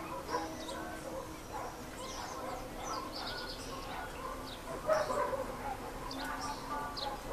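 Small songbirds chirping in short, high notes over a steady background of lower, wavering calls, with a louder burst of calls about five seconds in.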